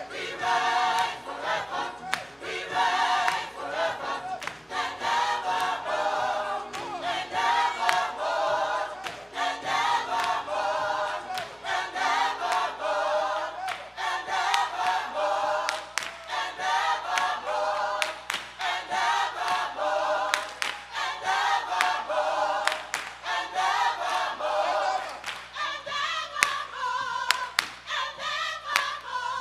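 Gospel choir singing, with sharp hand claps coming in more often in the second half.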